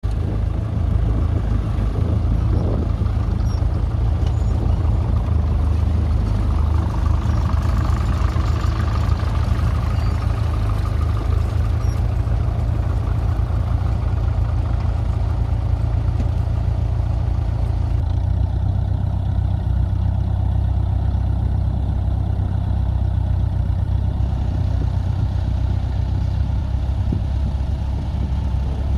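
Ferguson FE35 tractor engine running steadily at working speed, as when pulling a plough. Its note shifts slightly about eighteen seconds in.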